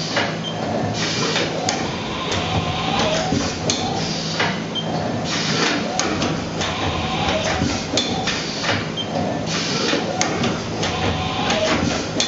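Haas VF-6 vertical machining center's side-mount tool changer running tool changes: repeated mechanical clunks and clicks with short hissing bursts, over a steady machine hum.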